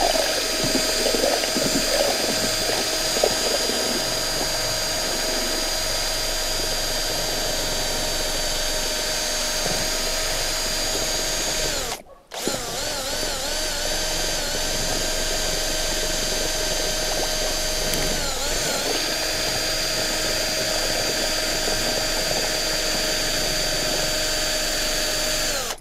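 Hand-held drill with a paddle mixer attachment, running steadily as it stirs thinned grey paint in a plastic bucket. The motor whine dips in pitch now and then, stops for a moment about twelve seconds in, then starts again and runs until the end.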